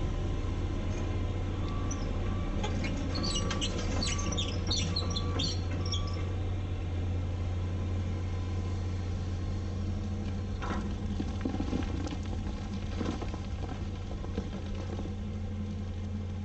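John Deere excavator's diesel engine running steadily while it works. Short high chirps of a bird come in a few seconds in, and a few short knocks and scrapes follow about halfway through.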